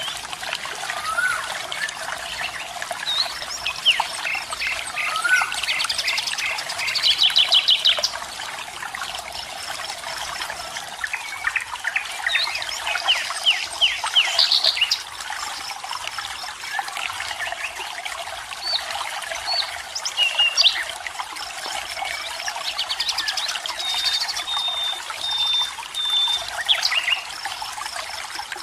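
A waterfall runs steadily, with several birds singing over it: fast trilled bursts, scattered chirps and short whistled notes, and a run of even, repeated notes near the end.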